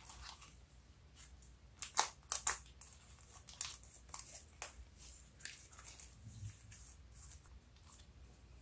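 Fingers pressing and folding a thick, glossy slime, which gives off sharp sticky pops and crackles. They come in a cluster about two seconds in, then more scattered, thinning out near the end.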